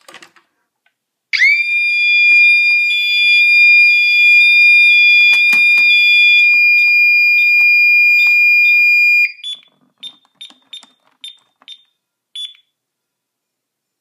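Honeywell Vista-20P burglar alarm going off after an armed door contact is opened: a really loud, steady high-pitched tone for about eight seconds that then cuts off as the code is entered. About seven short keypad beeps follow as keys are pressed.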